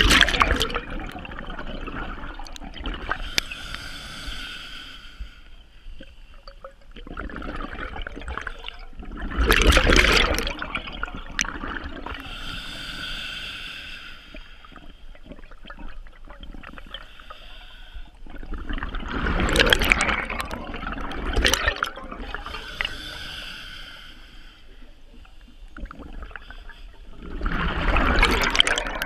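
Scuba diver breathing through a regulator underwater: a rush of exhaled bubbles about every nine or ten seconds, with the softer hiss of an inhale through the regulator between them.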